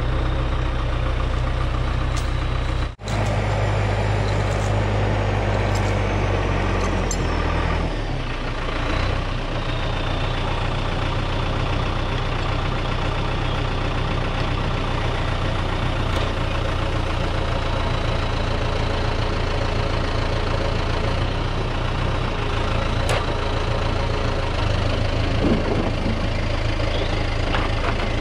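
Heavy diesel engine idling steadily. The sound drops out briefly about three seconds in; after it the engine note sinks over a few seconds and settles back to a steady idle, with a few faint clicks later on.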